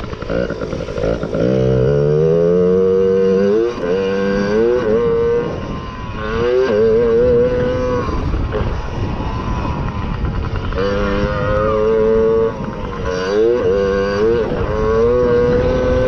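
Mini motocross bike engine heard from on board, revving up and dropping back over and over as the rider accelerates, shifts and rolls off around the track, with wind rushing over the microphone.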